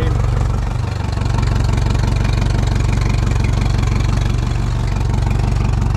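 Mercury outboard motor idling steadily out of the water while being flushed with fresh water through a garden hose, a stage in rinsing the salt out of its cooling system after use at sea.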